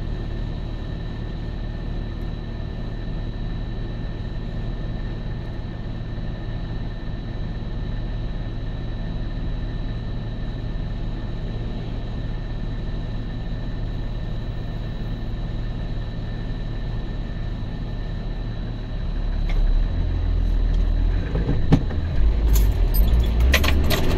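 Car engine idling, heard from inside the cabin, with a steady faint high whine over the low hum; about 19 s in the engine note rises as the car pulls away from the light.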